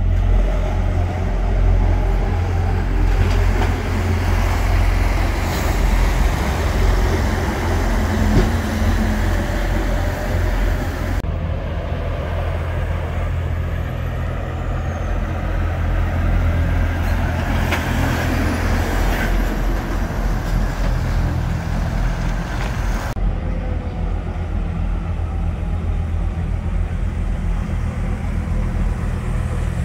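Heavy diesel lorry engines running at low speed as articulated trucks pull away, a deep steady rumble with road and tyre hiss above it. The sound changes abruptly twice, about 11 and 23 seconds in, as one truck's sound gives way to the next.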